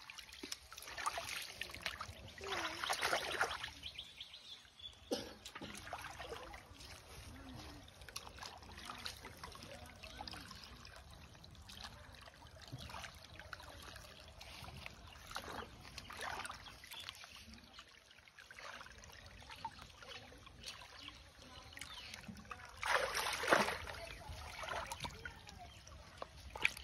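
Hands splashing and sloshing through shallow muddy water while groping for fish, in irregular bursts, loudest about a second in and again near the end.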